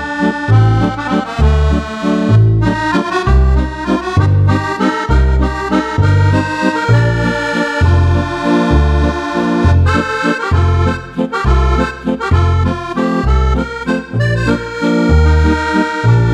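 Roland FR-8x digital accordion playing a tune, the right-hand melody over a pulsing left-hand bass of about two notes a second.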